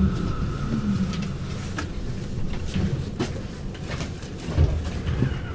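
VGF S-Wagen tram standing still, its electrical equipment giving a steady high whine and a low tone that both fade out about a second in, then a low rumble with scattered light clicks and knocks.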